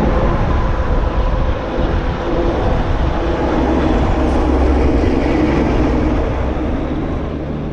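Steady, loud mechanical rumble like a heavy engine running, with a low drone, fading out near the end.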